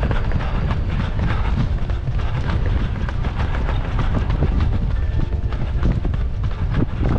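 Rhythmic running footsteps on a synthetic track, with a steady rumble of wind on a microphone carried by the runner during a fast repeat.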